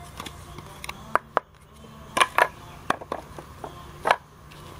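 Carbon fibre honeycomb sandwich panel handled on wooden battens: a series of short sharp clicks and knocks, the loudest a pair about two seconds in and one about four seconds in.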